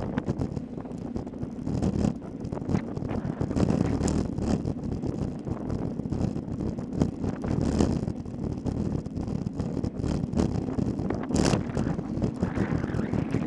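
Wind buffeting the microphone of a camera mounted on a road bike at racing speed, over the rumble of tyres on asphalt. Scattered short clicks and rattles run through it as the bike goes over the rough road.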